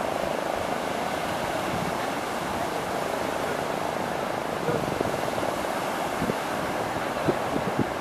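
A fishing boat's outboard motor running steadily over the wash of breaking surf, with a few short thumps in the second half.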